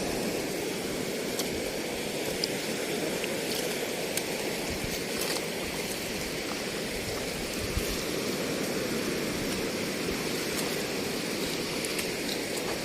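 Sea water washing and rushing over a rocky shore, a steady noisy wash with a few faint clicks.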